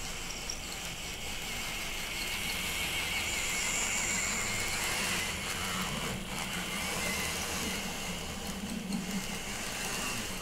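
N-scale model trains running along the track past the camera: a steady whir of the small motors and wheels on the rails.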